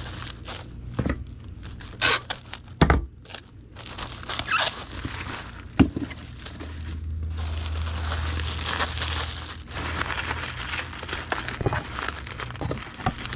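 Bubble wrap crinkling and rustling as it is wrapped around a vinyl figure, with scattered sharp clicks and knocks from handling; a longer continuous stretch of rustling comes about halfway through.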